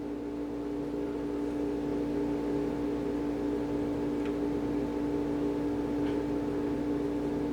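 Steady background hum from a motor or appliance, with one strong fixed tone and its overtones, and a couple of faint light clicks.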